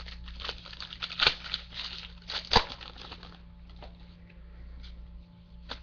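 Crinkling and tearing of a baseball card pack wrapper being opened and handled, dense for about three seconds, then thinning to occasional light clicks and rustles.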